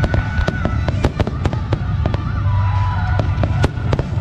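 A rapid barrage of aerial firework shells bursting, about three or four sharp bangs a second over a steady low rumble.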